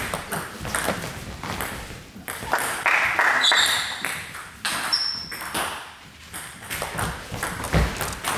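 Table tennis ball clicking off rubber-faced bats and the table in a rally, with the hall's echo after each hit. The hits thin out in a short gap between points, and play resumes near the end.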